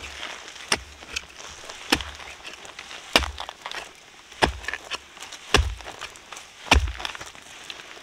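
A steady series of six heavy blows, about one every second and a bit, each a sharp crack over a dull thud, with lighter knocks in between, like something being chopped or struck.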